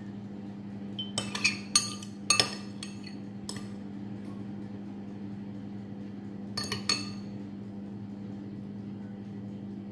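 Metal spoon clinking against a ceramic bowl while scooping filling for siopao. There is a quick run of sharp clinks between about one and two and a half seconds in, one more a second later, and two near seven seconds. A steady low hum runs underneath.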